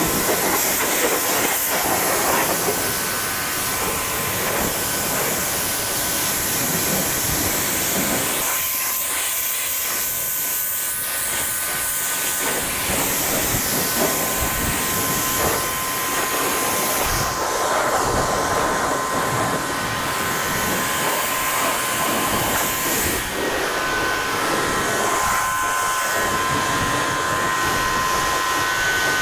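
Pressure washer spraying a high-pressure water jet onto a tractor's tyres, wheel rims and metal frame: a steady hiss with spatter, over a steady whine, the hiss easing a little for a few seconds past the middle.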